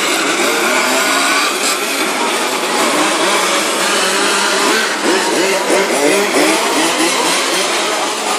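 A field of large-scale radio-controlled Formula 1 cars with small two-stroke petrol engines racing together, several engines overlapping, each pitch rising and falling as the cars accelerate and slow through the corners.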